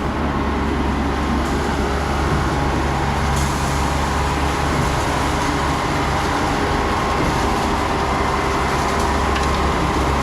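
Concrete mixer truck running steadily during a pour, a continuous low engine drone with its drum turning.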